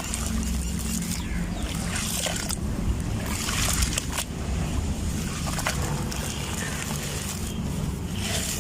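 Dry grey sand-cement crumbling and crunching, a continuous gritty crackle full of small sharp cracks.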